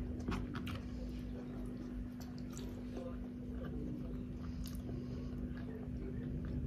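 Someone chewing close to the microphone, with small irregular mouth clicks and smacks, over a steady low hum.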